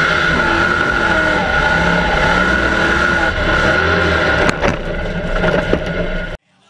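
Mega mud truck's engine revving up and down under hard driving, heard from inside the roll-caged cab, with a steady high whine over it. Several sharp knocks come about four and a half to six seconds in, and the sound cuts off abruptly near the end.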